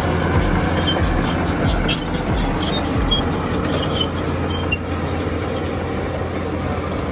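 Komatsu crawler bulldozer's diesel engine running steadily with a low drone while pushing soil, with short high squeaks and clinks from the steel tracks now and then during the first five seconds.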